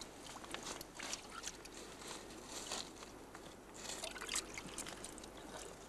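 Shallow water trickling and dripping among shore rocks, with scattered small splashes and clicks.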